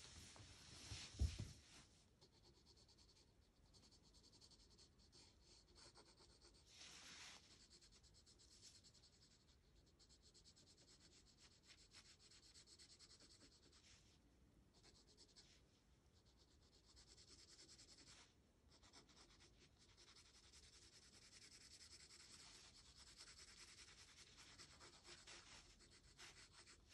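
Faint graphite pencil shading on sketchbook paper: continuous scratchy strokes with a few short pauses. A low thump about a second in.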